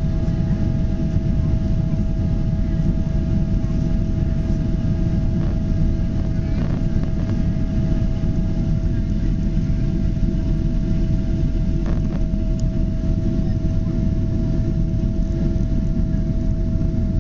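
Boeing 777 jet engines running steadily: a dense low rumble with a steady whining tone above it, unchanging throughout.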